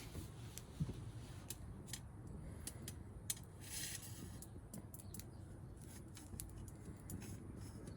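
Small wood fire crackling in a stainless steel utensil-holder hobo stove: faint, scattered pops and ticks, with a brief hiss about four seconds in.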